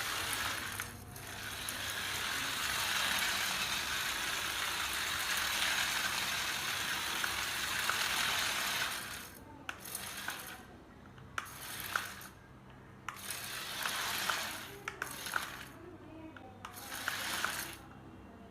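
Small electric drive motors and gears of a remote-control model combine harvester whirring steadily, then running in short stop-start bursts with sharp clicks for the second half.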